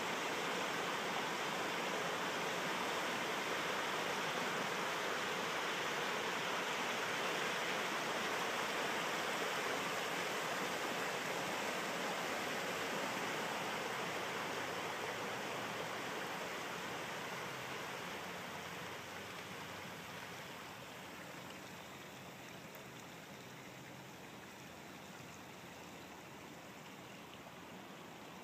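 Steady rush of muddy water churning and flowing across a collapsing sinkhole, easing to a quieter rush in the second half.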